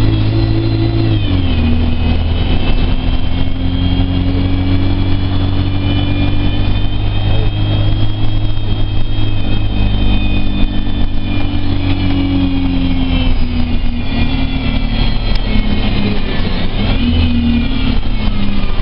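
ADL Enviro 200 Dart single-deck bus running, heard from inside the passenger saloon: the engine drone comes with a high whine. The revs drop about a second in, climb slowly, ease off about two-thirds of the way through, and rise and fall again near the end as the bus changes speed.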